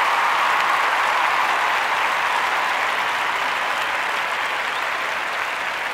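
A crowd applauding, a steady wash of clapping that slowly fades toward the end.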